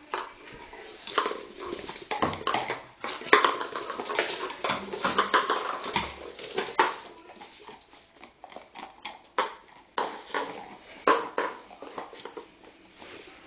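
West Highland white terrier puppy at play, making dog sounds amid many sharp clicks and knocks from its scrabbling on a wooden floor, busiest in the first half.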